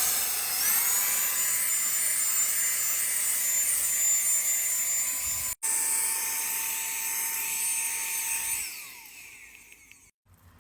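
Saker mini handheld cordless vacuum cleaner running at full power: a steady high-pitched motor whine over rushing air hiss, with a momentary dropout about halfway. Near the end the motor is switched off and winds down with a falling pitch.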